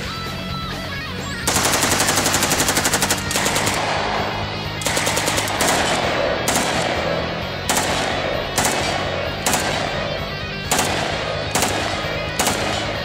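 Automatic rifle firing a long full-auto burst about a second and a half in, followed by a few short bursts, then single shots roughly one a second, over background music.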